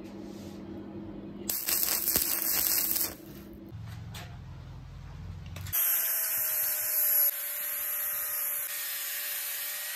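Arc welding on steel angle-iron lathe bed rails, a crackling arc for about a second and a half. From about six seconds in, an angle grinder with a flap disc grinds the welded rails: a loud steady hiss with a steady whine.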